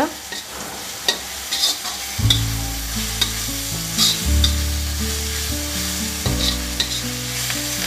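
Steel spatula stirring and scraping onions and spices frying in oil in an iron kadai: repeated scrapes and clinks of metal on the pan over a sizzle. A low steady hum comes in about two seconds in and shifts pitch every couple of seconds.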